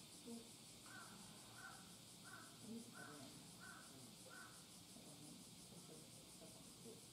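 Faint bird calls: six short calls in an even series, starting about a second in and ending about halfway through, over a steady hiss.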